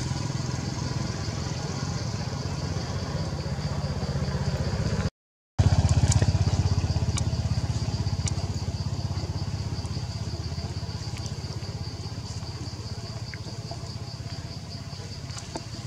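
A steady low engine rumble with a steady high insect buzz over it. It breaks off for half a second about five seconds in, then comes back louder and slowly fades.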